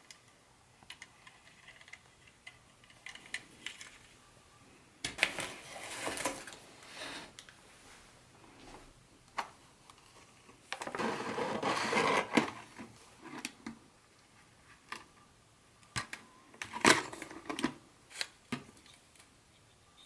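Unboxing noises: small clicks and taps of parts and packaging being handled, with two longer spells of rustling about five and eleven seconds in, and a quick cluster of louder clicks near the end.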